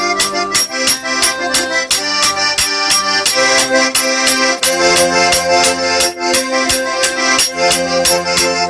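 Accordion playing a lively traditional Karachay dance tune in sustained chords, with a steady rhythm of sharp clacks from spoons being knocked together in time.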